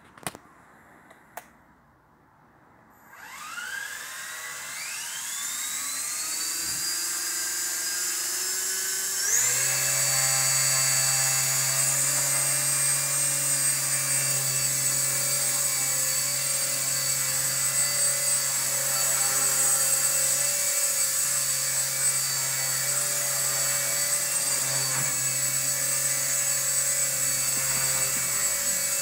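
Align T-Rex 250 DFC Pro electric RC helicopter spooling up and flying. After a few faint clicks, its motor and rotor whine starts about three seconds in and rises in pitch, then settles about nine seconds in into a steady high whine with a low rotor buzz as it flies.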